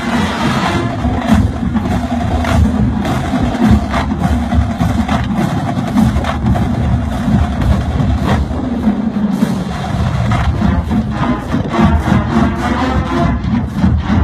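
Marching band playing, with sharp, frequent drum and percussion strikes over sustained horn tones.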